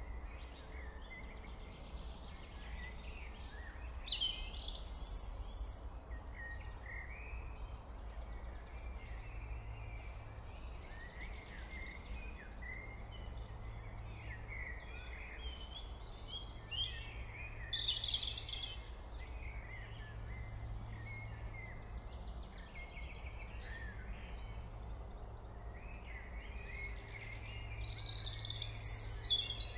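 Small birds chirping and calling over a steady low hum, the song growing louder a few times.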